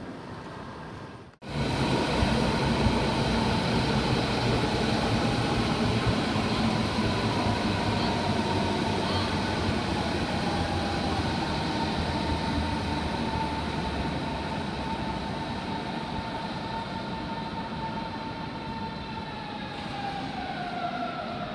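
Berlin S-Bahn electric train pulling into the platform: a steady electric whine from its traction motors slowly falls in pitch as it brakes, dropping faster near the end, over the continuous rumble of its wheels on the rails. The loudness jumps up suddenly about a second in.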